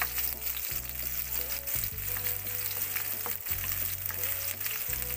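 Chopped onion and garlic sizzling in hot cooking oil in a nonstick frying pan, with a spatula stirring and scraping them around.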